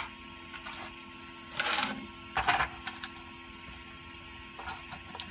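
3D printer running a print, with a steady machine hum of several held tones. Two short scraping rustles of plastic printed parts being handled on a cutting mat come about two and two and a half seconds in.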